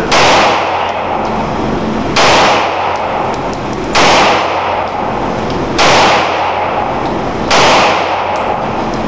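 CZ-52 pistol firing 7.62×25mm rounds: five shots about two seconds apart, each trailing off briefly.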